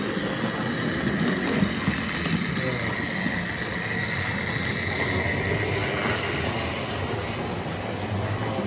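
OO gauge model locomotive running on the layout: a steady high motor whine over a low rumble of wheels on the track, with people talking in the background.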